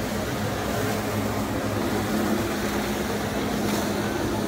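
Steady drone of a watercraft engine running at constant speed: a low hum held at two steady pitches over an even rushing hiss.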